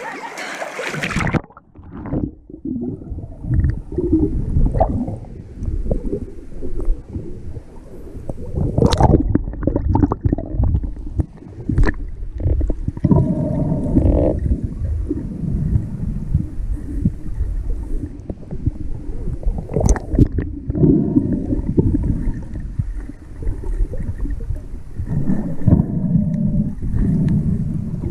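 Underwater sound picked up by an action camera submerged in a lake: muffled, low rumbling and gurgling of water moving around the camera and swimmers' strokes, with a few sharp clicks. About a second in, the splashing at the surface cuts off as the camera goes under.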